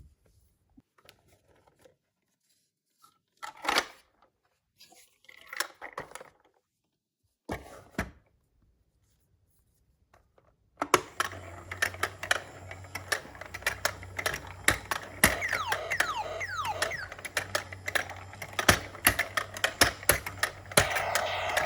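Short bursts of plastic and packaging being handled, then, about eleven seconds in, a toy whack-a-mole game starts up: a steady motor hum under a fast, irregular run of plastic clacks and taps, with some sliding tones.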